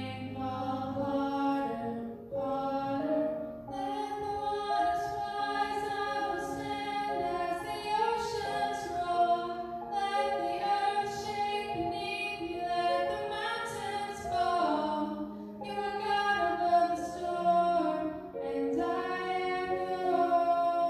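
Worship song sung by female singers into microphones over a sustained instrumental accompaniment.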